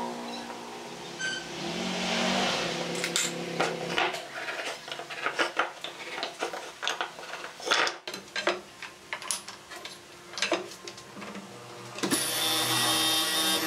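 Scratches, taps and clicks of hand marking tools on a pine board: a steel square set down and a wooden marking gauge scribing lines. About twelve seconds in, a benchtop hollow-chisel mortiser's motor starts running steadily.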